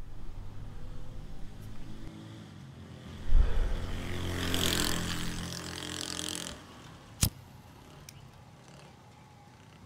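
A motor vehicle passing along the street, its engine growing louder to a peak about halfway through and then fading away. A single sharp click follows a little later.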